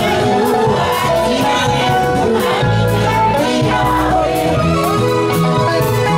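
Live dance band music with singing into a microphone, a moving bass line and a steady percussive beat.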